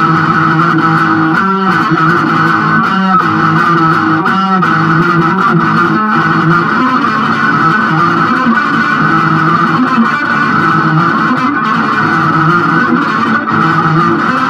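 Instrumental passage of a psychedelic rock track led by electric guitar, playing loud and sustained.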